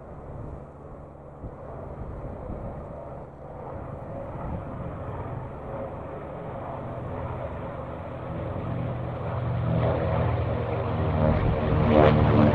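Twin Wright R-2600 Cyclone radial engines of a B-25J (PBJ) bomber running hard with their propellers as the plane climbs out after takeoff. The drone grows steadily louder and is loudest near the end as the plane passes close.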